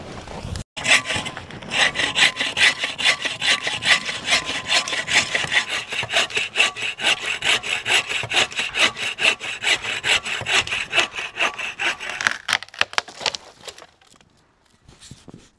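Bucksaw cutting through a small tree trunk in steady, even back-and-forth strokes, which stop about twelve seconds in.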